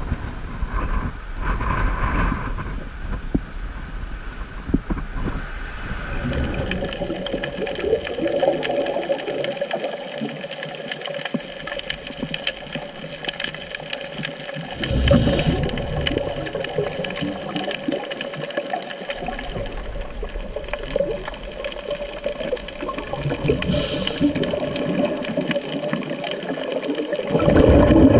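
Muffled underwater sound through a camera housing, with a steady hum and a scuba diver's exhaled regulator bubbles coming in a few deep surges, the loudest near the end.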